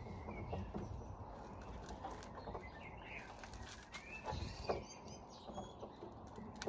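Small birds chirping in short calls, with a few faint clicks and taps scattered through.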